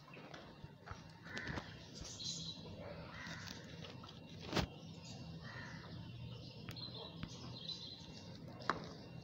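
Birds calling several times in short calls, with two sharp knocks: the loudest about four and a half seconds in and another near the end.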